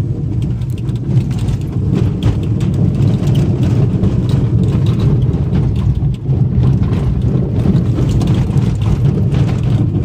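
Road noise inside a moving car's cabin: a steady low rumble of tyres and engine with frequent small rattles and knocks.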